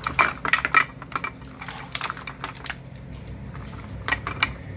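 Quick, irregular clicks and crinkles of small plastic toy packaging being handled and opened, busiest in the first second.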